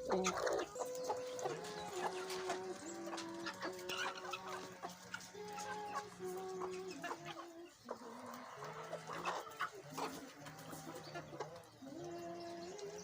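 Chickens clucking and chicks peeping, with short sharp calls scattered throughout, over soft background music of held notes.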